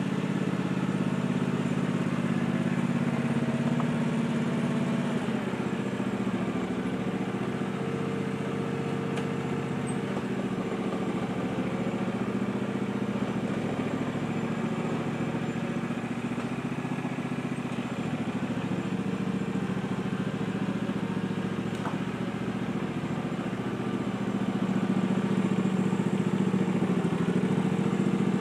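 Ride-on lawn tractor's small engine running steadily, growing a little louder near the end.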